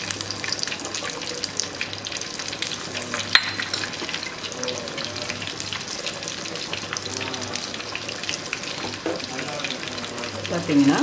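Rice and chicken boiling in water in an open pressure cooker: a steady bubbling crackle, with one sharp click about three and a half seconds in.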